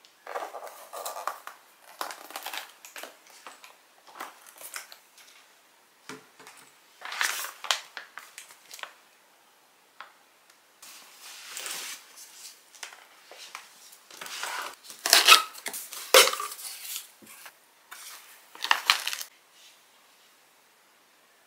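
Packaging being handled: a cardboard box and a large plastic bag rustling and crinkling in bursts. Near the end, ceramic bowls knock and clink together in their cardboard box.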